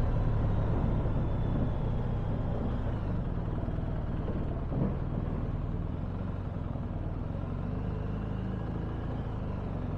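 Motorcycle engine running at low speed as the bike rides slowly up a ferry's loading ramp onto the car deck, a steady low rumble with a single clunk about five seconds in.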